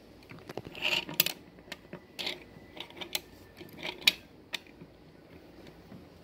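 Small plastic toys and a toy wagon handled on a wooden tabletop: a scatter of light clicks and taps as the wagon and figures are moved and set down.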